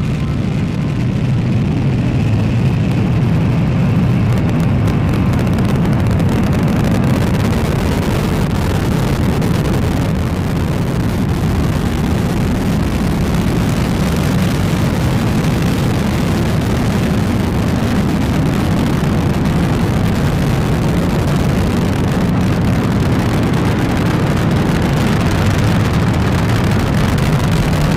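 Delta IV Heavy rocket climbing after liftoff, its three RS-68A engines giving a loud, steady, deep rumble of rocket exhaust.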